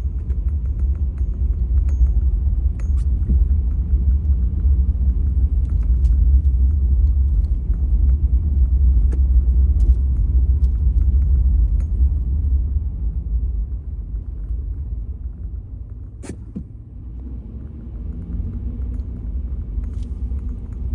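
Low road-and-drivetrain rumble inside the cab of a Honda Ridgeline pickup driving on unplowed, car-compacted snow. It is loud for the first dozen seconds, then eases off for a few seconds, with a single sharp click about sixteen seconds in.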